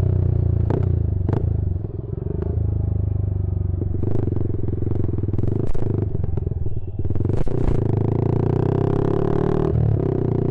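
Yamaha R15 V3's single-cylinder engine running through an Akrapovic M1 aftermarket exhaust at a steady idle-like note. The note dips briefly about two seconds in and shifts near the end, with a few sharp clicks over it.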